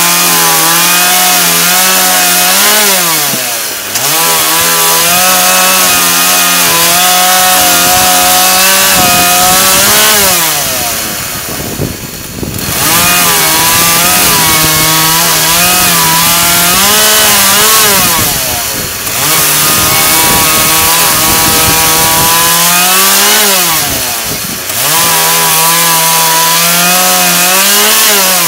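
Husqvarna two-stroke chainsaw running at high revs and cutting through branch-wood logs. The engine pitch sags and recovers several times as cuts load it and finish, with a longer drop about eleven seconds in.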